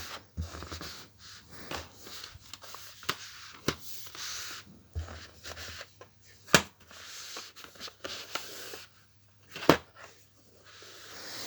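DVD box set packaging being handled: scattered sharp plastic clicks and knocks, two of them louder about six and a half and ten seconds in, with short rustling between.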